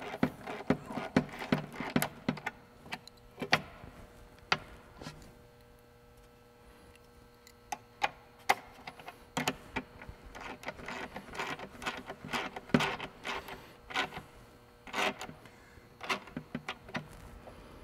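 Small metal wrenches clicking and clinking against a bolt and nylon lock nut as the nut is tightened on a transducer mounting bracket, in quick clusters with a short lull around the middle, then scattered clicks of handling the metal bracket.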